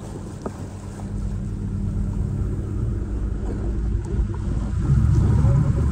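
A boat's engine running with a steady low hum, mixed with wind and water noise; it grows louder about five seconds in.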